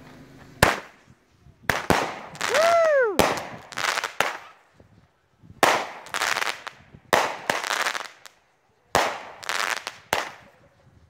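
Fireworks going off in a quick series: about eight sharp bangs, each trailed by a crackle and hiss lasting up to a second. A brief whistle rises and falls in pitch about three seconds in.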